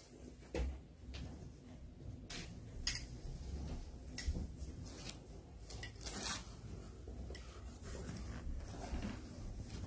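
A plastic spoon scooping salt from a bowl and tapping and scraping on a block of ice in a metal tray. It makes scattered light clicks and scrapes at an irregular pace, with a longer scrape about six seconds in.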